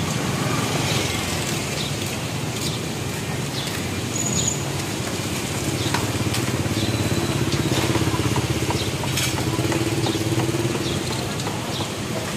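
Motorbike engine running amid street-market noise, its drone strongest in the middle, with scattered clicks and clatter.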